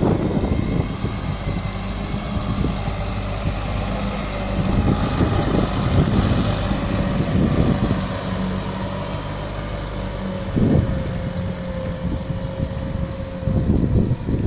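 Isuzu 700P fuel tanker truck's 190 hp diesel engine running steadily as the truck drives slowly, with a brief low thump about ten and a half seconds in.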